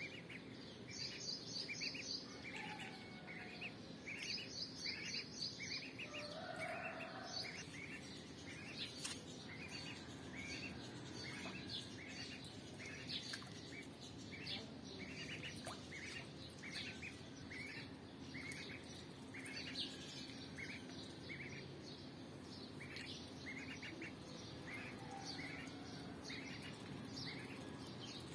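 Duckling peeping over and over, short high peeps about two a second, with two brief spells of higher twittering chirps in the first few seconds.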